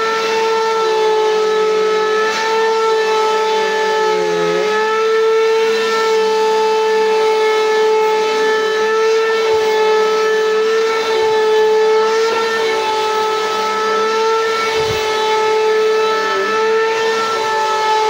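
Bissell PowerForce Compact bagless upright vacuum running on carpet: a loud, steady motor whine with its overtones, dipping briefly about four and a half seconds in.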